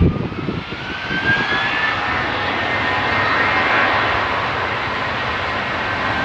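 Jet airliner engines with a whine rising in pitch over the first two seconds as the noise builds, then holding steady and loud. A low buffeting rumble sits under it in the first second.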